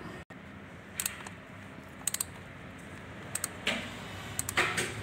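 Socket wrench on a Volkswagen Amarok's oil filter housing cap, being worked to loosen it: a few short metallic clicks in twos and threes, then two longer scrapes near the end.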